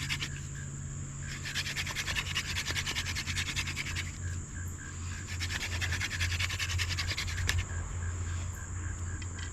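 Hand drill fire-making: a dog fennel spindle spun between the palms into a hickory fireboard, a fast rasping scrub in three runs of a few seconds each with brief pauses, friction heat building toward an ember. Crickets chirp steadily behind it.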